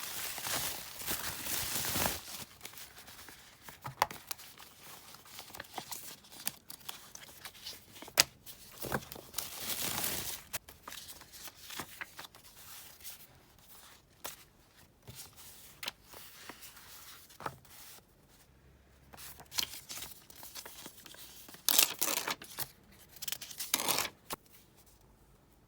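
Stickers and masking tape being peeled and torn on a diary page, with paper rustling and small taps and clicks in between. Longer tearing strokes come at the start, about ten seconds in, and twice near the end.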